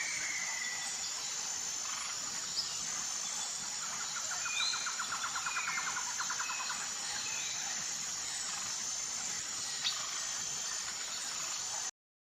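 Tropical rainforest ambience: a steady high-pitched insect drone, a rapid pulsing trill lasting a few seconds about a third of the way in, and scattered short bird chirps. The sound cuts off abruptly just before the end.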